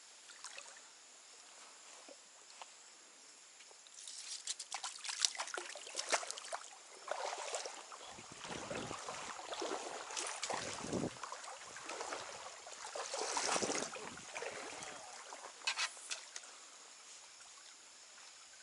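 Stream water trickling and sloshing, with irregular splashes, rustles and sharp clicks of handling starting about four seconds in and dying down near the end.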